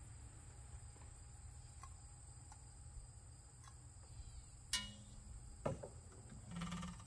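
Faint steady background: a low hum and a thin high-pitched whine. Twice near the end, about a second apart, a sharp knock rings briefly as the hand works on the antique hit-and-miss engine's flywheel; the engine itself is not running.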